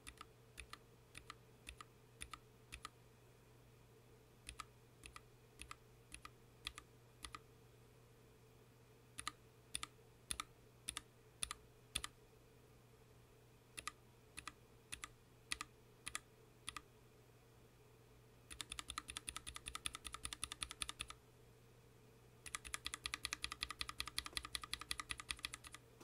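Keystrokes on a Planck Hi-Pro mechanical keyboard with Cap Yellow linear switches and PBT keycaps: single key presses in small spaced groups, then two runs of fast typing near the end. The switches are heard stock at first, then lubed with Krytox 205g0 and fitted with switch films.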